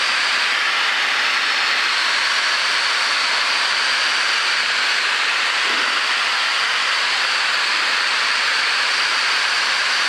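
Steady cabin noise of a Piper PA-28 light aircraft on short final approach: engine, propeller and rushing air heard from inside the cockpit as an even, loud hiss that does not change.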